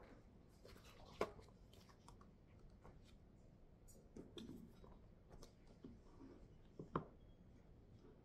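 Soft handling of books and paper on a desk: a faint rustle of pages and covers, with two sharp knocks, about a second in and near the end, as the books are closed, moved and set down.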